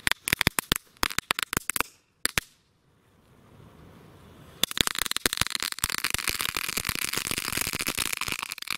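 A pack of small Dragon X firecrackers going off together: a quick string of sharp bangs for about two seconds, one more bang, a short lull, then dense, rapid crackling from about halfway through.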